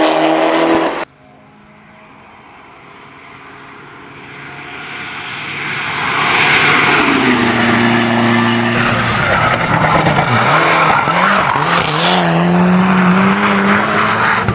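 Rally cars driven flat out on a hillclimb course: a loud engine cuts off about a second in, then another race car is heard approaching, growing louder and running at full throttle from about six seconds in, its engine pitch dropping and climbing again through gear changes, with hissing tyre noise.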